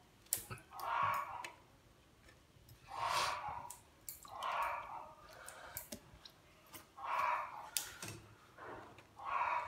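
Wet lettuce leaves being handled at a sink, giving sharp clicks and crisp crackles. A soft swishing comes about every two seconds.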